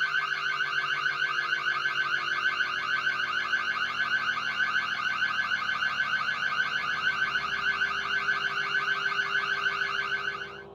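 Ring Stick Up Cam's built-in siren sounding: a high-pitched, rapidly pulsing electronic alarm that holds steady and cuts off near the end.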